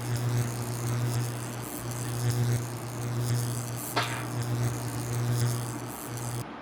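Low, steady electric buzz of a shock-alarm wristband going off, dipping briefly a few times, with one sharp click about four seconds in.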